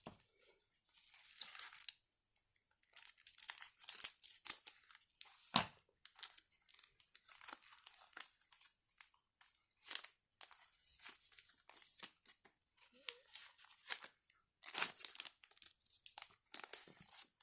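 Foil Pokémon card booster pack wrapper being torn open and crinkled, in irregular crackly bursts, loudest about four seconds in and again near the end.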